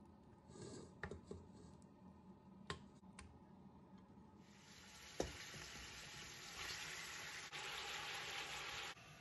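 Chunks of raw veal sliding off a plate into a hot stainless steel pot, with a few soft knocks, then sizzling in the oil from about four seconds in, with a sharp knock just after it starts. The sizzle grows louder and cuts off suddenly near the end.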